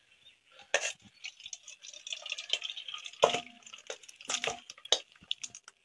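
Metal utensil stirring and scraping in a cooking pot, with a few sharp clinks of metal against metal.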